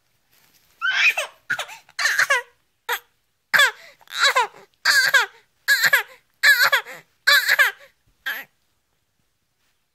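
Baby fake-coughing: about a dozen short, high-pitched voiced coughs in quick succession, each sliding down in pitch, stopping near the end.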